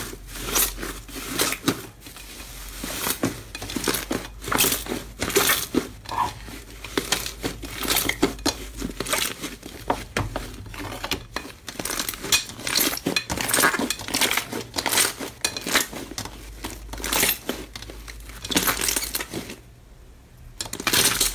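Thick slime mixed with pieces of aluminium foil being squeezed and kneaded by hand: dense, irregular crinkling and crackling, quieter for a moment near the end.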